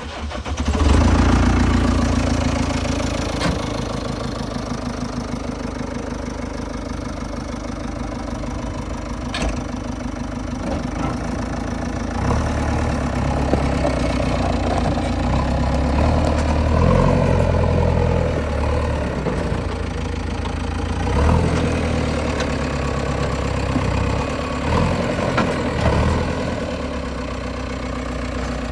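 A diesel machine engine starts right at the beginning and runs on steadily with a deep rumble. From about twelve seconds in it is revved up and down several times.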